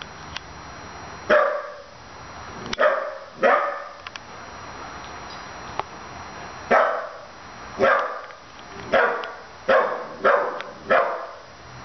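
A 15-week-old puppy barking at a stuffed toy dog: about nine short, single barks, a few spaced out at first, then, after a pause of a couple of seconds, a quicker run of barks about a second apart.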